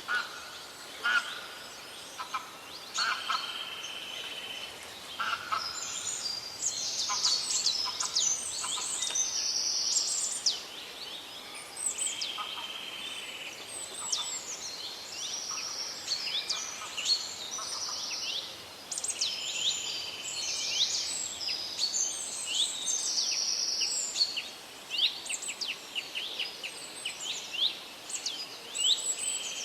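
Forest birdsong: several birds calling and singing together, with quick high chirps, fast downward-sweeping notes and repeated trills, over a steady soft background hiss.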